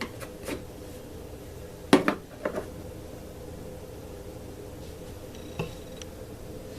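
A few light clinks and knocks of small hard parts and tools being handled and set down on a workbench, the loudest a quick pair about two seconds in, over a faint steady hum.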